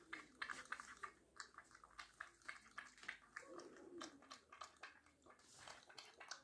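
Sphynx cat lapping milk from a stainless-steel bowl: quick, faint, wet tongue clicks in an uneven run.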